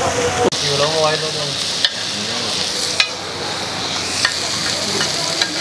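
Shami kebabs sizzling steadily in oil on a large flat iron tawa, with about four sharp clicks of a metal spatula against the griddle.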